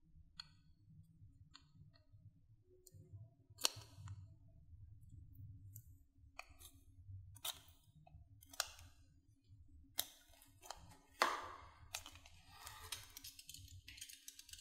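Knife blade carving and shaving a bar of soap: short crisp cutting and scraping strokes with small clicks at irregular intervals, the sharpest about three and a half, ten and eleven seconds in.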